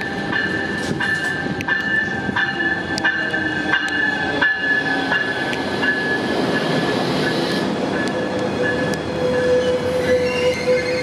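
Train rolling slowly past close by: wheels click over rail joints at an even pace under a steady high-pitched wheel squeal, and from about eight seconds a steady lower drone comes in as the Caltrain locomotive draws alongside.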